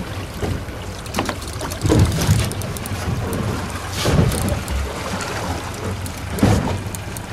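Boat engine running with a steady low hum, wind buffeting the microphone in a few louder gusts.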